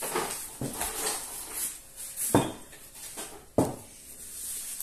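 Handling noises at a table: a few sharp knocks and clunks, the two loudest about two and a half seconds and three and a half seconds in, with faint rustling between them.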